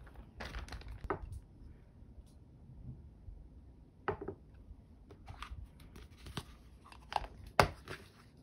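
Glass food-storage container handled on a wooden table, its plastic snap-on lid pressed on and latched. A scatter of sharp clicks and knocks, the loudest near the end.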